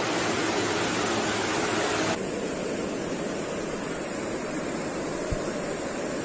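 Muddy floodwater rushing in a flash-flood torrent, a steady roar of water. About two seconds in it changes abruptly to a duller rush, with a brief low thump near the end.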